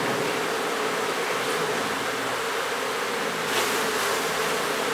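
Honey bees buzzing in a steady, continuous hum around an opened hive while its frames are lifted out and inspected.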